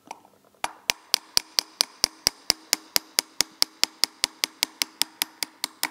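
Small hammer tapping lightly and steadily on a ground-down jeweller's screwdriver used as a punch, driving the pin out of a Weber DCOE carburettor's throttle spindle. The taps start about half a second in and come about four or five a second, each with a short metallic ring.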